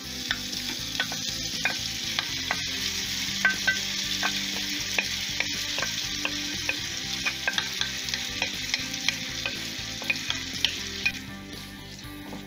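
Hot oil and chilli-spice masala sizzling in a frying pan as quartered cooked limes are tipped in and stirred with a wooden spatula, the spatula clicking and scraping against the pan. The sizzle dies down about eleven seconds in.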